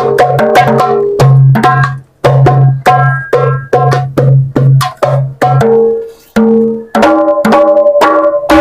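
Hadroh-style hand-drum percussion playing a steady rhythm of about four strikes a second, each with a low ringing drum tone and higher pitched ringing notes above it. The beat breaks off briefly about two seconds in and changes to longer held notes near the end.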